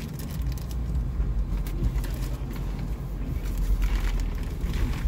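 Jeep Wrangler engine running low and steady, heard from inside the cabin while crawling off-road, with scattered clicks and rattles.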